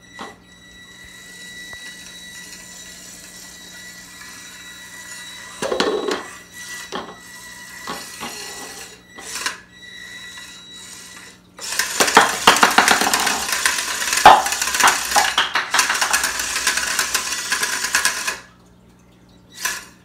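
A one-pound Fingertech Viper antweight combat robot driving on a granite countertop: scattered knocks and rattles, then about six seconds of loud, dense clattering from about twelve seconds in, which stops abruptly.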